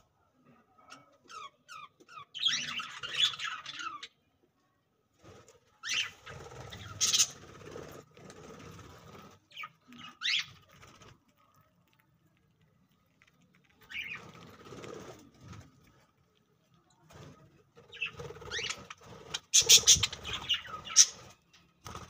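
Budgerigars chirping and chattering in several short bursts with quiet gaps between.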